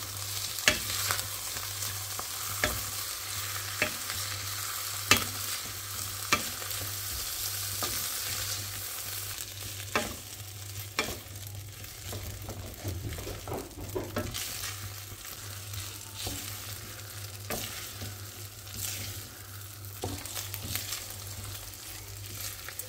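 Rice sizzling as it toasts in hot butter and olive oil in a stainless steel pot, stirred with a wooden spoon that knocks and scrapes against the pot about once a second. This is the rice being fried until it turns translucent, before the liquid goes in.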